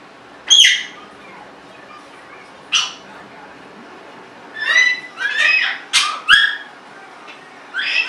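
Congo African grey parrot giving short squawks and whistled calls with gliding pitch: one about half a second in, another near three seconds, a quick run of several calls a little past the middle, and one more at the end.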